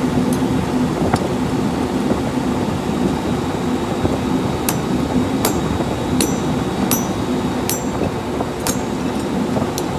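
Light hammer taps on steel, each with a short metallic ring. They come sparsely at first, then about one every three-quarters of a second from about halfway in, over a steady workshop machine hum.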